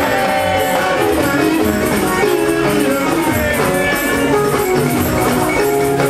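Live Yoruba gospel band music: keyboard notes over drums keeping a steady dance beat.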